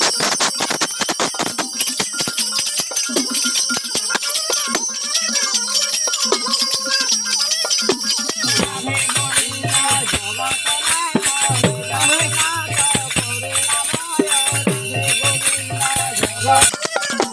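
Kirtan group chanting a devotional song to constant jingling of small brass hand cymbals and a jingle clapper, with a two-headed barrel drum. The music grows fuller about halfway through.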